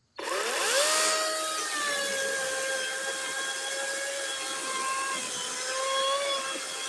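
Kobalt 12-inch cordless electric chainsaw starting up: its motor whines up to speed in under a second, then runs steadily while cutting through a log, the pitch dipping slightly as it bogs under load.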